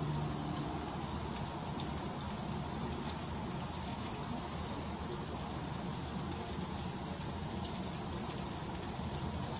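Freezing rain falling steadily in an ice storm, an even pattering hiss of many small drops. A low hum stops within the first second.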